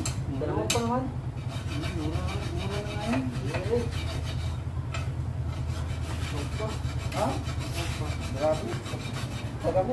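A hand tool scraping and rasping against an aluminium engine crankcase in quick, steady strokes.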